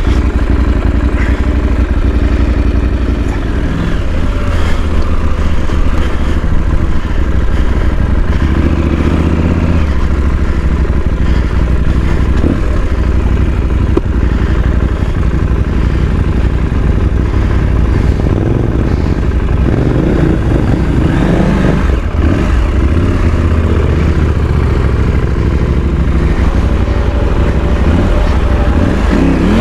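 KTM adventure motorcycle's engine running as it is ridden, its pitch rising and falling with the throttle, with a few short knocks along the way.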